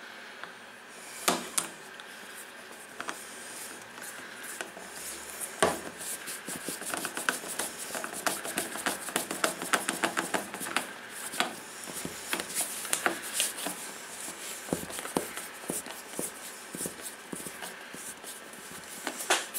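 Screws being driven by hand with a screwdriver into the side flange of a roof vent fan: a run of small clicks and scrapes as the driver is turned and regripped, busiest in the middle, with a couple of sharper knocks.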